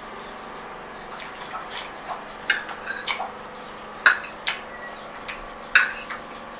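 Metal fork clinking and scraping on a plate while twirling spaghetti: a handful of sharp clinks, the loudest about four seconds in and again near the end.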